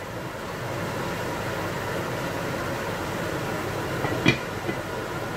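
Kitchen range hood fan running steadily. About four seconds in, a single clink as the cast-iron lid is set onto the casserole.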